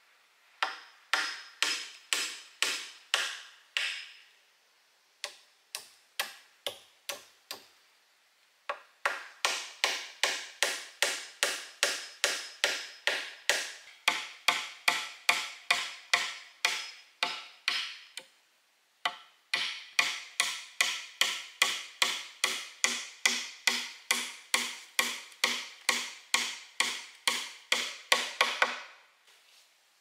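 Wood being chopped with a hand blade: sharp strokes at about two a second, each ringing briefly. The strokes come in four runs, with short pauses about 4, 8 and 19 seconds in.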